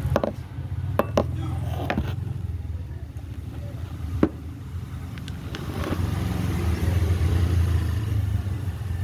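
Several sharp clicks of small parts and a screwdriver as a Kemei KM-1986 hair clipper is put back together. A steady low rumble runs underneath and grows a little louder after about six seconds.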